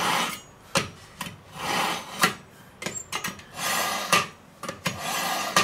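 Kitchen knife drawn through a pull-through knife sharpener, being sharpened: about four scraping strokes, each under a second, with short clicks of the blade between them.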